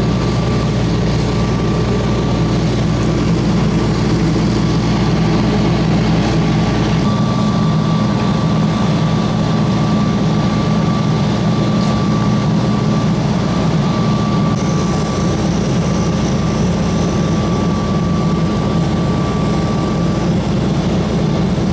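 Fire engine's diesel engine running steadily at the scene: a heavy, unbroken low drone with a faint steady whine above it. A single sharp knock right at the end.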